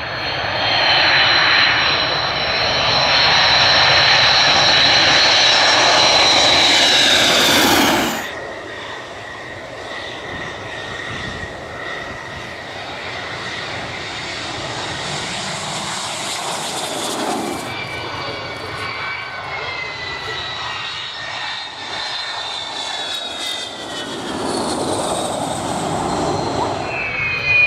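Fixed-wing aircraft engines in a series of landing clips: a loud engine noise with high steady whining tones that cuts off suddenly about eight seconds in, followed by quieter engine runs with a changing whine.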